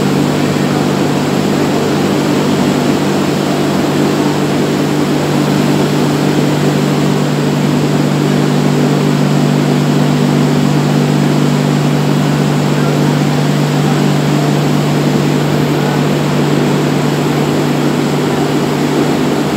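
Steady, loud drone of heavy industrial machinery: an unchanging low hum with a noisy hiss above it.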